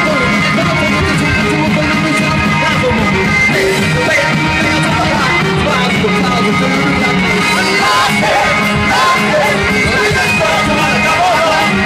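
A live rock band playing loudly, with electric guitar and saxophone, and a male singer singing into a handheld microphone.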